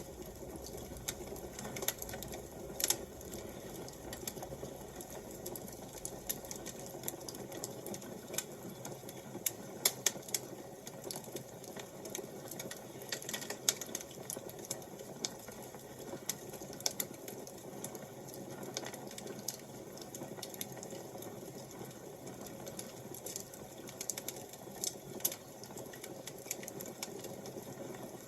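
Fire crackling: irregular sharp pops and snaps, a few much louder than the rest, over a steady low hiss.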